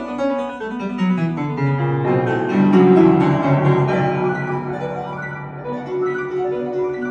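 Instrumental music of ringing, overlapping keyboard-like notes, swelling to its loudest about three seconds in and then easing off.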